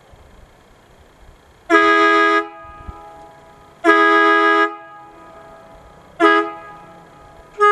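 Multi-chime locomotive air horn sounding a steady chord in three short blasts, the third the shortest, with a fourth, longer blast starting near the end. Each blast leaves a lingering echo.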